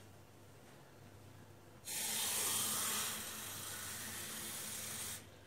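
Kitchen tap turned on, water running into a drinking glass for about three seconds, strongest at first, then steady, and shut off abruptly.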